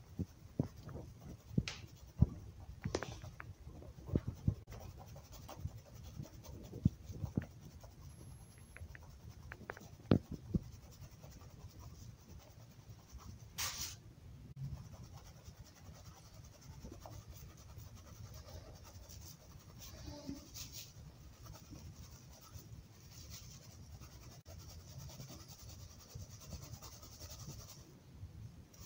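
Packed baking soda crunching and crumbling under a steel bowl and a hand, with sharp, crisp crunches through roughly the first ten seconds, then softer scraping and rubbing of the powder.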